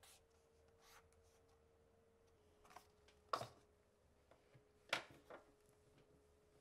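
Quiet desk sounds over a faint steady hum: a felt-tip pen scratching a mark onto a paper desk calendar, then two sharp knocks and a smaller tap as the calendar is set back on the shelf and a laptop lid is opened.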